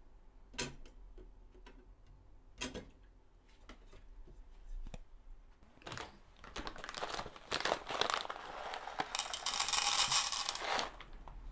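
Two sharp knocks near the start, then a paper coffee bag rustling and roasted coffee beans poured from it into a metal bowl, a loud rattling pour about nine seconds in that lasts around two seconds.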